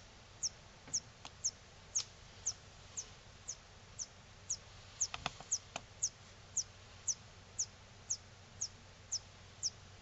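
Switch-mode power supply board of a Philips 42TA2800 LCD TV chirping: short, high-pitched chirps that fall in pitch, evenly repeated about twice a second. Each chirp is the supply trying to start up, failing and shutting down, then trying again, possibly because of an overload.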